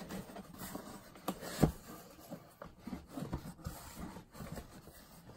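A card reader being worked out of its box: scraping and rubbing of the packaging with scattered small knocks, and one sharp knock about a second and a half in.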